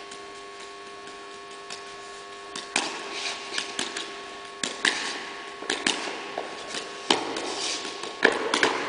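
Juggling balls slapping into the hands as they are caught and thrown. The catches are irregular, coming thick and fast from about three seconds in, with a few louder smacks, over a steady hum in the room.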